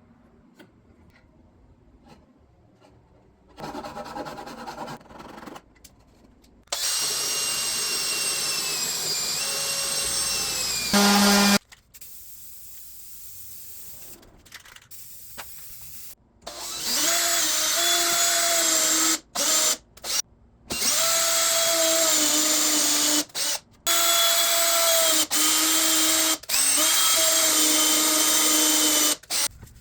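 Electric power tool running on wood in several bursts of a few seconds each: a steady high motor whine that sags slightly in pitch under load around the ninth second. The bursts start and stop abruptly, with a short louder burst near the eleventh second.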